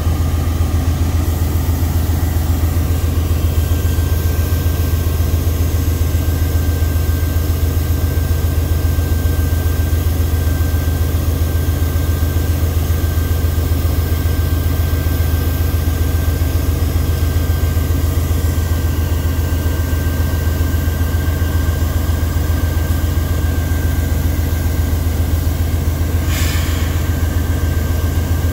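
Diesel-electric freight locomotive engine running steadily, with a deep hum and a thin steady whine above it. A short hiss comes near the end.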